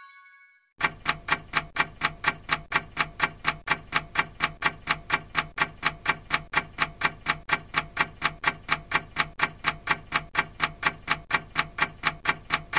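Clock-ticking sound effect: fast, even ticks, about four a second, starting about a second in.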